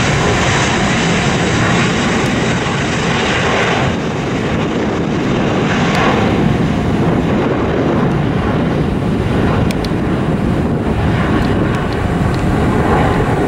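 A JetBlue Airbus A320-family jet's engines running at takeoff power through its takeoff roll: a loud, steady jet roar.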